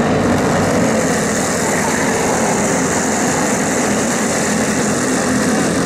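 Go-kart engines running steadily and loudly at a kart race track.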